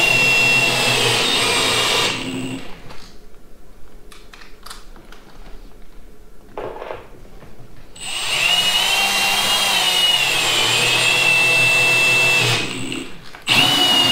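Cordless drill driving a lag screw through a projector ceiling mount into a joist: a steady motor whine for about two seconds, a pause, then a second run of about four and a half seconds with the pitch wavering as it works, and a short final burst near the end.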